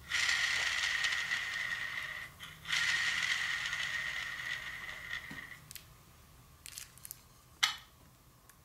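Arrow spinner whirring as an arrow tipped with a QAD Exodus broadhead spins on it, a spin test to see whether the broadhead spins true. The whir has a steady high tone, breaks briefly about two and a half seconds in, picks up again and fades away after about five seconds. A few light clicks follow as the arrow is handled, the sharpest near the end.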